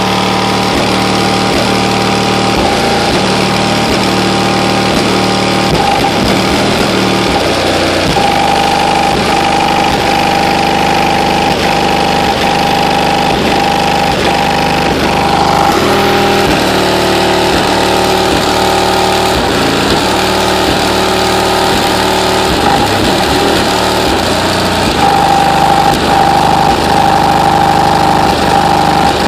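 Bass from an SPL competition car audio system in an SUV, played very loud. It is a steady, unbroken distorted rumble that overloads the microphone.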